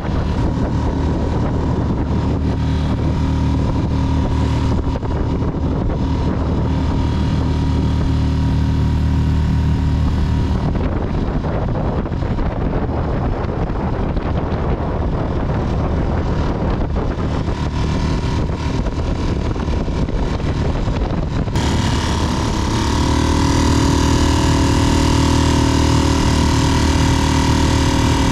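Freshly repaired Mercury F3.5 single-cylinder four-stroke outboard motor running steadily under way, with wind and water rush. A little past two-thirds in, the motor suddenly becomes louder and brighter.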